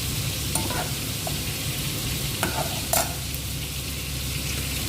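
Onion and garlic sautéing in a little oil: a steady frying sizzle, with a utensil stirring and clinking against the pan a few times, loudest about three seconds in.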